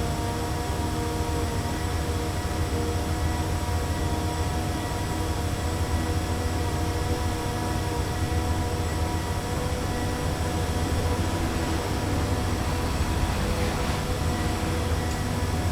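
City street ambience: steady road-traffic rumble with a constant machinery hum, the mix of car and construction-site noise of a dense urban street.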